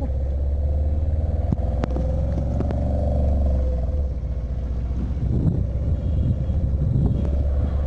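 A moving pickup truck's engine and road noise, heard from the open cargo bed: a steady low rumble with a steady whine over it.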